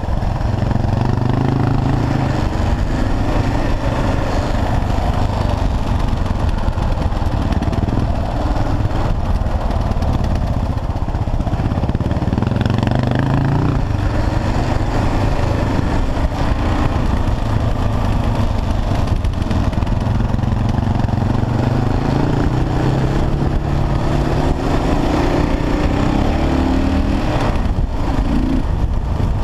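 Kawasaki KLR650 single-cylinder engine running under way on a dirt forest road, its revs climbing and dropping again and again, with wind noise on the helmet camera.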